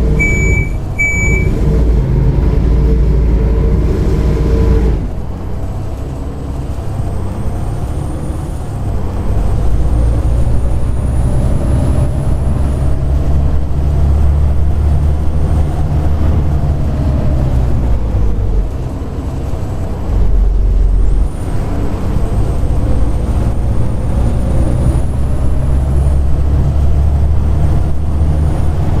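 Volvo B7TL bus's diesel engine running under way, heard from inside the bus, with a faint high whine that climbs slowly and drops back twice as it accelerates, the whine that the title calls a loud "hoover". Three short beeps sound in the first second or so, like door-closing warning beeps.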